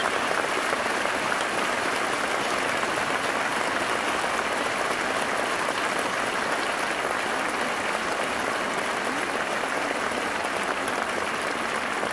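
Audience applauding, a steady dense clapping throughout.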